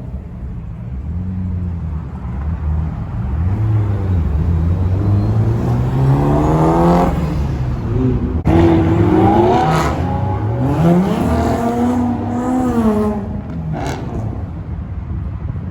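BMW E92 M3's 4.0-litre V8 under acceleration, its pitch climbing and dropping back several times through the revs.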